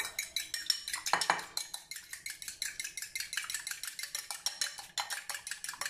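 Metal fork beating an egg in a ceramic bowl: a fast, even run of clicks as the tines strike the bowl, several a second.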